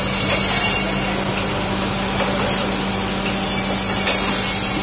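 Nespresso coffee capsule filling machine running: a steady low hum under rubbing, rattling mechanical noise, with a high hiss that swells near the start and again about three and a half seconds in.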